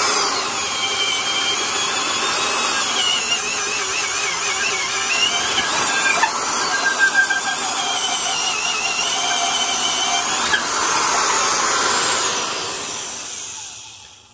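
Porter-Cable #372 half-inch D-handle drill with a 3.6-amp motor boring through wood with a large auger bit, heavily loaded and drawing well over its rated current. The motor whine wavers up and down in pitch as the bit loads and frees, then winds down and fades out near the end as the bit comes through the far side.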